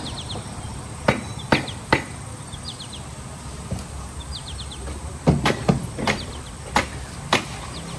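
Sharp, irregular knocks: three about a second in, then a quicker cluster of five or six in the second half. Small birds chirp in short quick runs behind them over a steady low hum.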